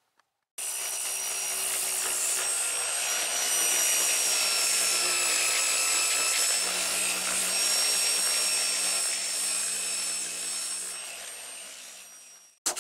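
Dual-action (DA) sander running against the car's metal roof panel, feather-edging the paint around bare metal. It starts suddenly about half a second in, runs steadily with a high whine, then winds down near the end and cuts off.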